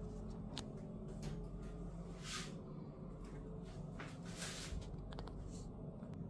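Faint handling and movement noise from a handheld camera walking through a small tiled bathroom: scattered soft clicks and a few brief rustles, the clearest about two and four seconds in, over a low steady hum.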